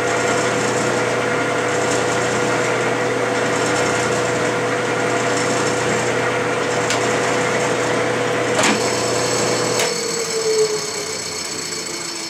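Clausing metal lathe running under power while single-point cutting an Acme thread in a plastic bar, with a steady motor and gear hum. About nine seconds in come two sharp clicks, then the motor cuts out and the lathe's hum falls in pitch and fades as it spins down.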